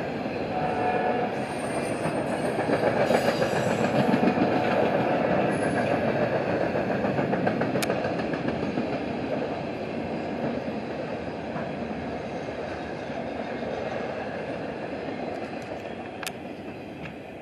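Freight cars of a CSX work train rolling past, their wheels clattering rhythmically over the rail joints. The sound is loudest a few seconds in and fades away as the last car passes near the end.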